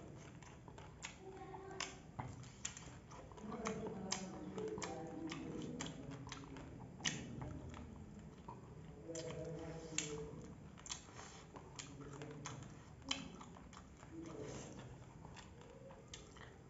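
A person chewing a mouthful of food eaten by hand, with many sharp crisp clicks of chewing and biting through it. Faint speech-like voices come and go in the background.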